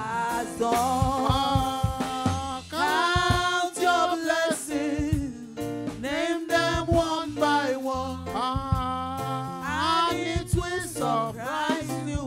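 Hymn sung by a man and women into microphones, in long held notes, over an instrumental backing of bass notes and percussion.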